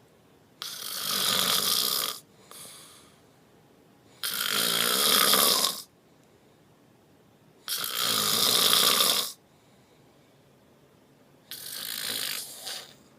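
Snoring: four long snores about three and a half seconds apart, each lasting a second and a half or so, with a faint breath after the first and near quiet between them.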